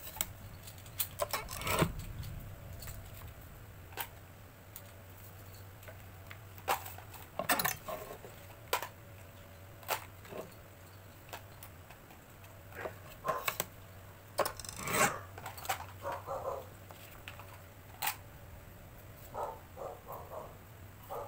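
Kraft paper and a plastic set square being handled on a paper cutter's board: irregular taps and clicks, with paper sliding and rubbing in a few louder scrapes.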